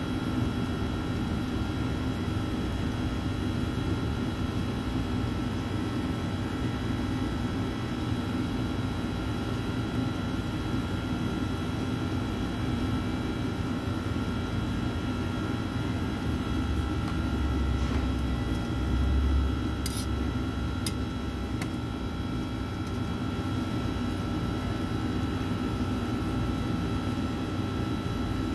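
Steady hum of workroom fans and refrigeration machinery: several constant whining tones over a low rumble. A brief swell in the rumble and a few faint clicks come a little past the middle.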